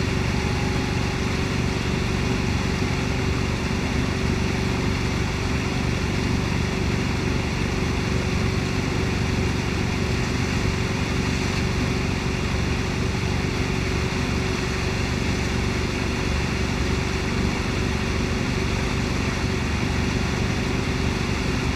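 Wakesurf boat's inboard engine running steadily at cruising speed, with the churning wake rushing behind the hull; a constant hum and an even wash of water noise.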